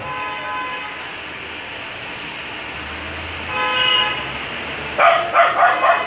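Vehicle horns honking: a held horn at the start, another about three and a half seconds in, then a louder run of short honks near the end, over a steady background of street traffic.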